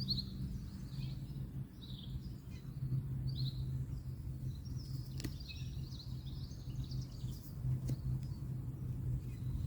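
Small birds chirping repeatedly over a steady low hum, typical of distant road noise, with two faint sharp clicks about five and eight seconds in.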